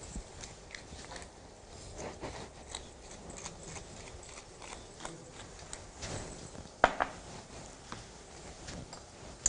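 Scattered light knocks and clicks of food being prepared at a wooden cutting board, with one sharper knock about seven seconds in.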